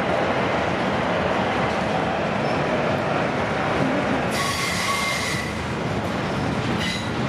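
Freight train rolling past with a steady rumble of wheels and cars. About four seconds in, a high-pitched wheel squeal sounds for about a second, and a shorter squeal comes near the end.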